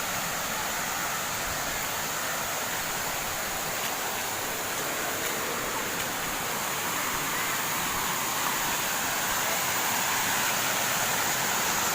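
Steady rushing of a waterfall, an even hiss of falling water that grows slightly louder near the end.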